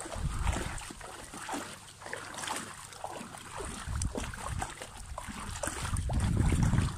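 Pool water splashing and sloshing around a person moving their arms waist-deep, with a low rumble that swells loudest near the end.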